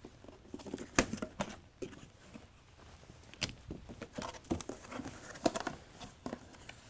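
Cardboard packaging being handled: white cardboard covers lifted off the top of a box and the inner cardboard flaps moved about. A string of light knocks, scrapes and rustles, the sharpest about a second in and about three and a half seconds in.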